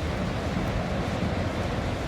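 Steady wash of ocean surf on the beach, with wind rumbling on the microphone.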